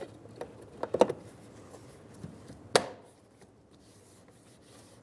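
Plastic interior door trim on a Toyota Camry being pressed into place, its clips snapping in: a few sharp clicks and knocks, the loudest about a second in and just before three seconds in.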